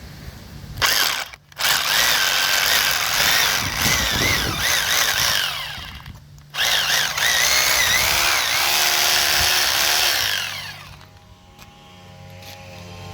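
Electric drill boring out a blocked gate-latch hole in concrete. It runs in two long spells under load, its pitch wavering, with a short break about six seconds in, then the motor winds down.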